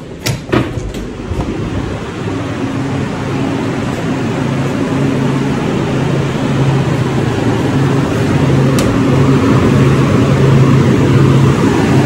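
A few sharp clicks as the walk-in cooler door latch opens, then the cooler's evaporator fans running with a steady hum and airflow noise that grows louder over the first few seconds. The fans run evenly, with no clicking or clacking.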